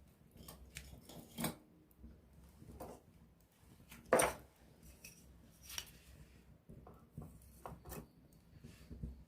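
Wood burning in a campfire, crackling with scattered irregular pops. A sharp pop comes about a second and a half in, and the loudest comes about four seconds in.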